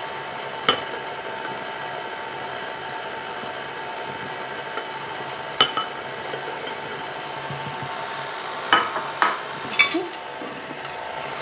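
KitchenAid Artisan stand mixer running steadily, its flat beater turning through cake batter in a stainless steel bowl, with an even motor whine. A few light knocks and clinks come about a second in, a little over five seconds in, and several close together near the end.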